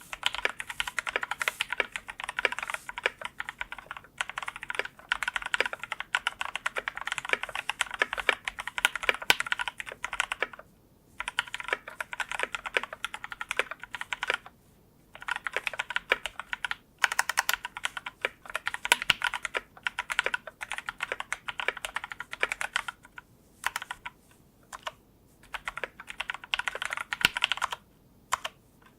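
Continuous typing on a Leopold FC660M mechanical keyboard with lubed tactile switches (YOK Red Panda housings with MX Clear stems) and GMK keycaps, fast runs of key clicks broken by a few short pauses.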